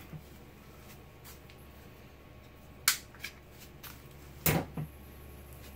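A few sharp clicks and knocks of hard 3D-printed plastic parts and hand tools being picked up and set down on a wooden bench, the loudest about four and a half seconds in, over a steady low hum.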